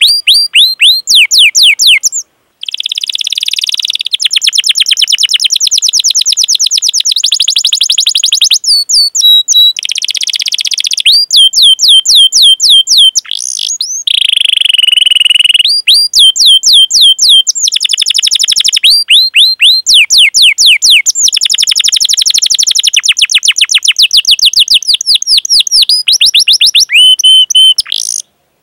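Canary singing a long, loud rolling song: fast runs of repeated falling chirps, with brief pauses about two seconds in and near the end.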